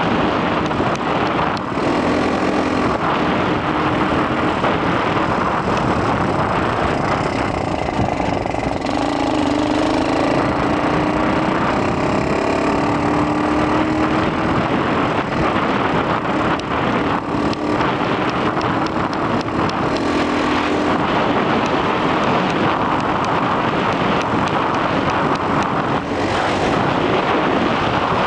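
X18 super pocket bike's small two-stroke engine running under way, its pitch climbing as it speeds up about ten seconds in and dropping back a few times, under heavy wind noise on the helmet-mounted microphone.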